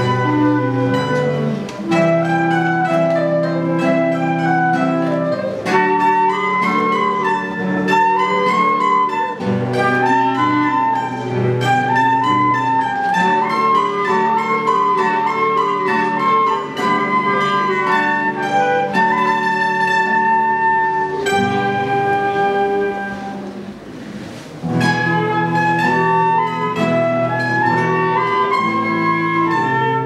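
A live chamber ensemble playing: a flute carries the melody over plucked guitar and mandolin-type strings. The music thins and softens briefly about three-quarters of the way through, then the full group comes back in.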